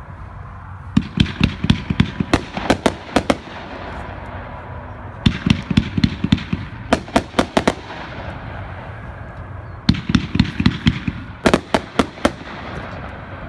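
500-gram consumer fireworks cake (Cutting Edge Unstoppable Rider) firing: three volleys of rapid sharp bangs, each about two seconds long at roughly four reports a second, separated by pauses of about two seconds.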